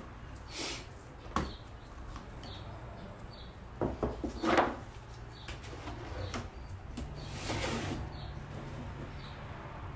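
A paintbrush knocking and scraping in small cups of milk paint, with a cluster of clicks and scrapes about four seconds in. Short faint high chirps recur every second or so.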